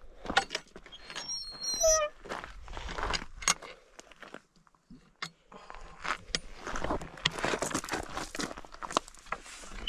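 Metal hook latch of a wooden field gate clinking and knocking as it is handled and hooked onto the post, with a brief high squeak about a second in. Footsteps crunch on a gravel path, busiest in the second half.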